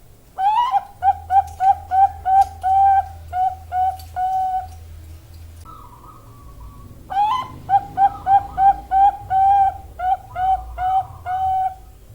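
Zebra dove (perkutut bangkok), a female by the title, cooing. It sings two phrases, each a rising opening note followed by about ten quick, evenly spaced coos and a longer closing note, with a pause of about two seconds between them.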